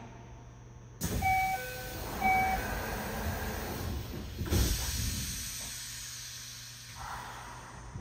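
Inside a Yokohama Municipal Subway 4000 series train car: a sudden hiss of air about a second in, with a two-note electronic chime sounding twice, then a louder burst of hiss and low rumble from the train midway that fades off toward the end.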